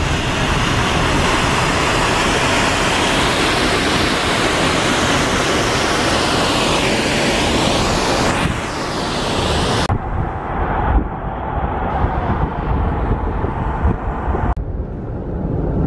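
Rushing noise of a moving car passing close by a roadside waterfall, heard through the open window as a loud, bright hiss. About ten seconds in it abruptly turns duller, leaving steady wind and road noise of the moving car.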